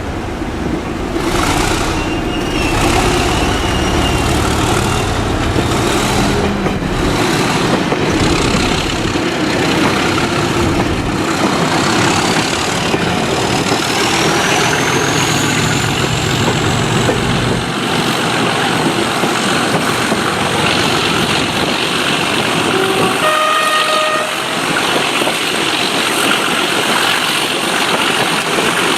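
English Electric Class 37 diesel locomotive 37422 pulling away under full power, its twelve-cylinder engine working hard while the turbocharger whistle climbs steadily in pitch and then holds high. A short toot sounds about 23 seconds in.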